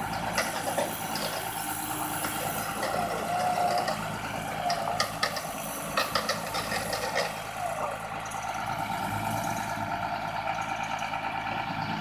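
Pickup truck engine running steadily, with a few light clicks and knocks.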